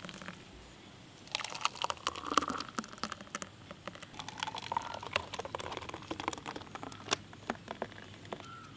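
Thin plastic cups crinkling and clicking as they are handled and filled with thick blended fruit pulp poured from a plastic jug: a scatter of small irregular clicks and crackles.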